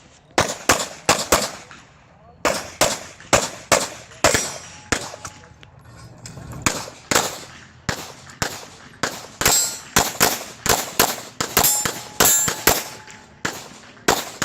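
Glock 34 9mm pistol firing rapidly through a USPSA course of fire, the shots mostly in quick pairs with brief pauses about two and six seconds in.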